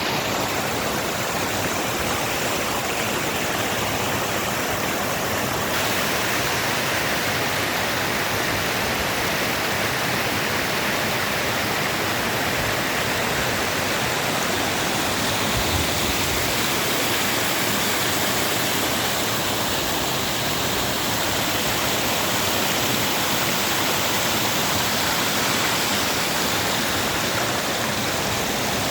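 Waterfall with its water pouring and rushing in a steady, unbroken roar of white noise.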